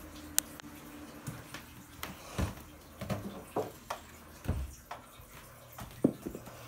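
Irregular knocks, thumps and clicks from handling a handheld camera and objects being moved about, with a sharp click shortly after the start.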